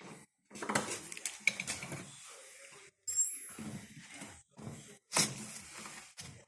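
Metal tools and parts clinking and knocking, irregular and handled by hand, with a sharp ringing metallic clink about three seconds in and another hard knock a couple of seconds later.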